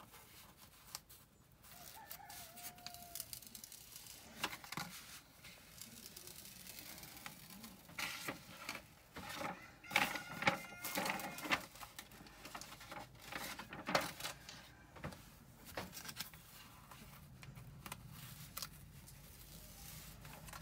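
Paper and plastic film crinkling and rustling as a diamond painting canvas is handled and its protective release film peeled back. A rooster crows in the background about halfway through.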